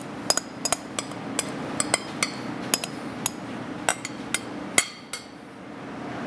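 A metal spoon clinking and scraping against a glass mixing bowl in quick, irregular taps as the last of the egg-and-cream custard is scraped out over a quiche.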